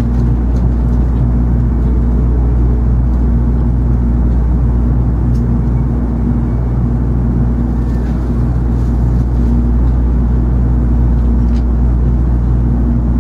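Steady low hum inside the passenger car of an N700 series Shinkansen as it eases to a stop at a station platform. A few low, even tones sit under the noise throughout.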